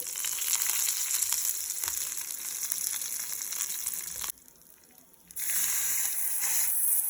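Cumin seeds and curry leaves sizzling and crackling in hot ghee in a pan. The sizzle drops away abruptly a little after four seconds in and comes back about a second later.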